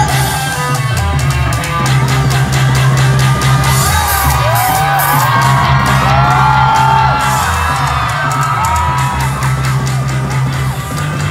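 Live pop music played loud over a concert PA, heard from within the audience: a strong bass line and steady beat under singing, with fans yelling and whooping over it.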